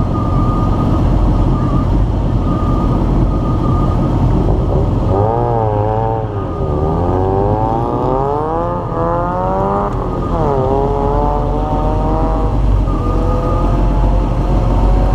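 A car's engine idles with a steady low rumble. About five seconds in, the race car ahead revs up and accelerates away, its pitch rising through the gears with a shift at about ten seconds, then growing fainter.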